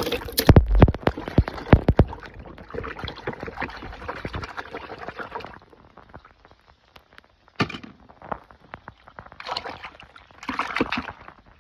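Toy packaging being handled and opened: a run of sharp clicks and knocks in the first two seconds, then rustling and crinkling, and later scattered short rustles.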